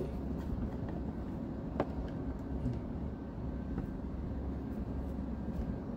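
Steady low background rumble, with a single sharp click about two seconds in.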